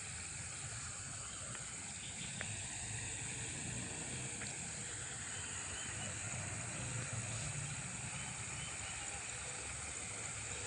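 Steady rural outdoor ambience: an even high hiss with a low rumble underneath and a few faint ticks.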